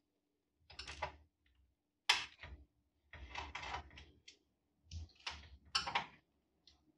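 Screws being taken out of a TV's backlight assembly by hand: a series of short clicks, scrapes and rattles, the sharpest about two seconds in.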